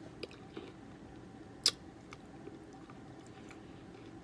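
A person eating from a bowl with a spoon: quiet chewing and mouth sounds, with a few small clicks and one sharp click about a second and a half in.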